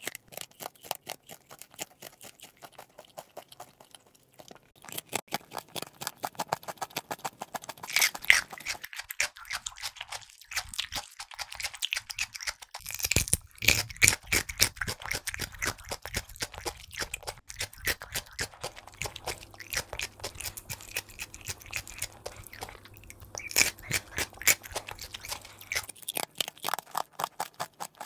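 Rabbits chewing food: a rapid run of small crunching clicks as they nibble.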